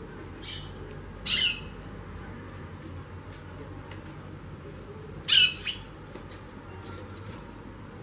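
Female white-bellied seedeater (chorão) giving harsh, raspy 'xaxando' calls: two loud ones about four seconds apart, with faint high chips between. This calling is the sign of a female in breeding condition ('no fogo').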